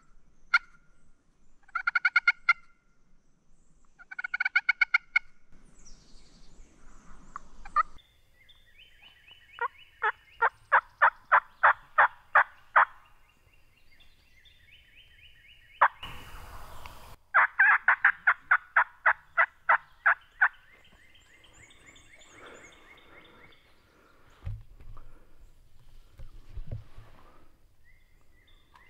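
Wild turkey gobblers gobbling: two short rattling gobbles in the first few seconds, then two longer runs of evenly spaced calls, about four a second, near the middle. There is a brief rustling noise between them.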